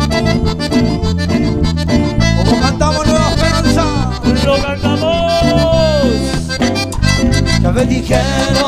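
Cumbia band playing an instrumental passage: a lead melody with sliding, bent notes over a steady bass line and percussion.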